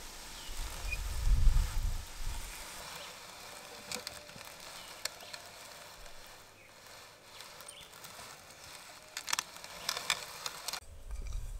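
Hand-cranked cast-iron Corona grain mill grinding roasted cacao nibs: a faint gritty rasp with scattered sharp clicks, several close together near the end. A brief low rumble about a second and a half in is the loudest part.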